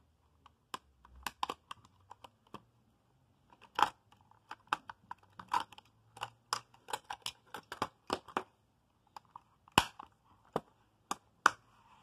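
Hard plastic clicking and clacking from handling a Sony WM-AF59 Sports Walkman's cassette door and case: an irregular run of sharp clicks, with louder clacks about four, five and a half, ten and eleven and a half seconds in.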